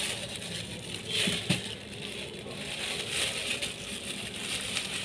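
Thin plastic carrier bags crinkling and rustling in repeated bursts as they are handled and opened, with two soft knocks about a second and a half in.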